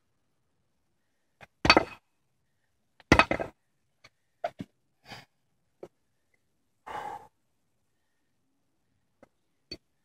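Two hard thuds a second and a half apart: open-hand edge strikes on a cloth-covered concrete paver resting on cinder blocks, and the paver does not break. They are followed by lighter knocks and a scrape as the paver is handled and set back down.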